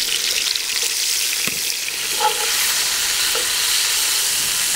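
Smoked, cured pork belly searing in hot oil in a cast-iron Dutch oven: a steady sizzle, with a couple of light utensil taps.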